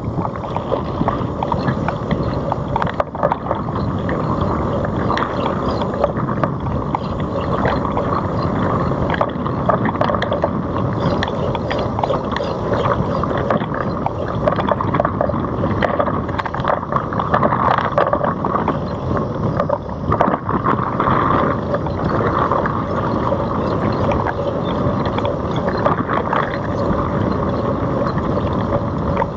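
Wind rushing over a bike-mounted GoPro's microphone while riding a Citibike, with a steady run of small clicks and rattles from the bike over the road.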